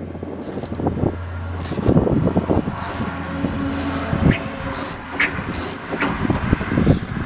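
A socket ratchet clicking in short bursts about once a second while a bolt on the door is loosened, with rustling and handling noise around it.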